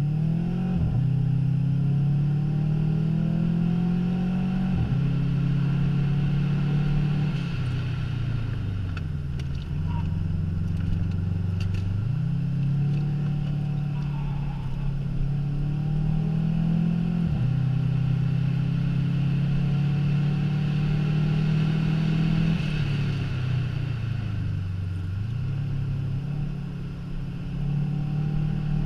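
Subaru Impreza's flat-four boxer engine under hard acceleration on a track lap, heard from inside the cabin. Its note climbs steadily and drops sharply at each upshift. It falls away twice, about a third of the way in and near the end, before pulling up again.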